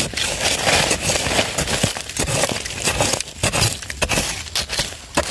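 A digging spade chopping and scraping into dry, crumbly soil and roots, with irregular crunching strikes and loose earth spilling.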